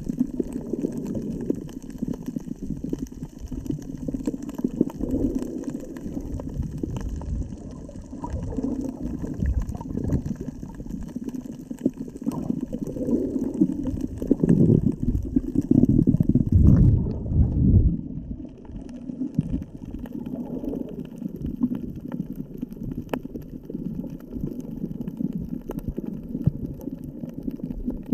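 Muffled sea water churning and bubbling around a GoPro camera held in the water. It swells louder for a few seconds past the middle, then settles back.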